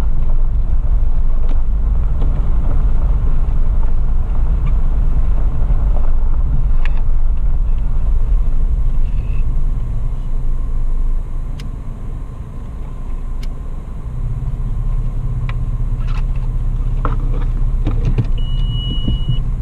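Steady low rumble of a Toyota FJ Cruiser's engine and tyres heard from inside the cab while driving slowly on a dirt trail, with scattered clicks and knocks from the body and suspension over bumps. The rumble eases for a couple of seconds around the middle, then picks up again.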